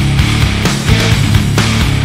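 Loud, hard-driving rock music with a heavy, steady drum beat.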